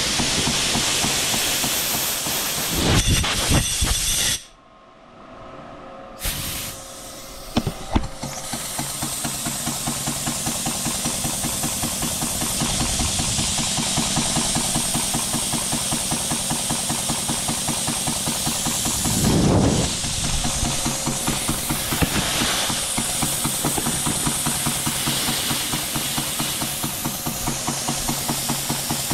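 A small brass model steam engine with a flyball governor running on the bench, hissing with a rapid, regular beat of exhaust. About four seconds in the sound drops away for roughly two seconds, a few sharp clicks follow, and then it runs on steadily.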